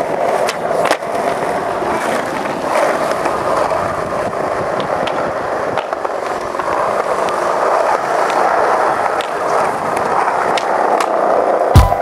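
Skateboard wheels rolling over smooth skatepark concrete, a steady hiss with a few light clicks from the board. A sharp knock right at the end.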